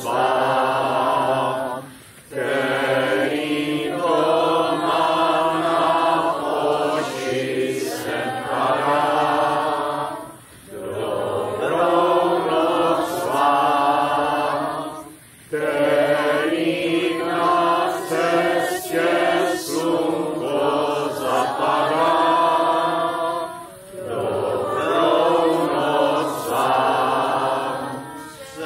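A group of people singing a slow goodnight song together, in long phrases with short breaks for breath.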